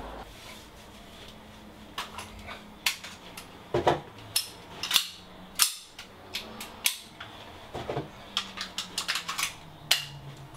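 Irregular sharp clicks and snaps of small gear being handled by hand, beginning about two seconds in and coming in quick clusters.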